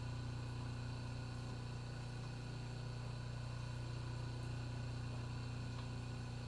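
A steady low electric hum with an even buzzing overtone, unchanging throughout.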